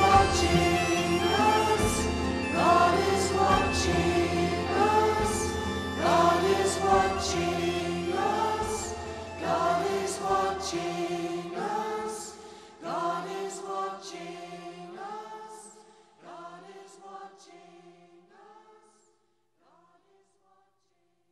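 Slow instrumental music with a steady bass line. The bass drops out about twelve seconds in, and the remaining sparse notes fade away near the end.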